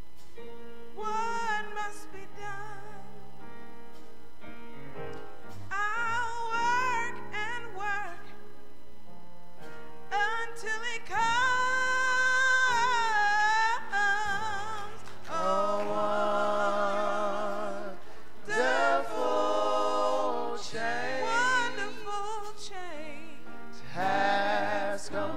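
A woman singing a slow gospel song in long phrases with wide vibrato, over steady held accompaniment chords.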